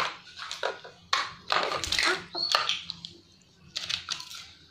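Plastic toys knocking and clattering on a tiled floor, in a series of short irregular clicks and knocks, with a few brief vocal sounds from the children.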